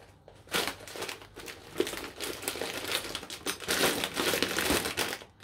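Plastic bag of corn flakes crinkling in bursts as it is handled, unclipped and pulled open, starting about half a second in.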